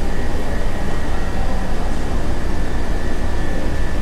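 A steady low mechanical rumble with a thin, constant high whine running through it, unbroken throughout.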